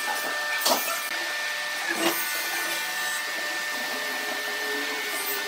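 A motor-driven machine running steadily with a thin high whine, with a few sharp clicks in the first two seconds; the noise cuts off abruptly at the end.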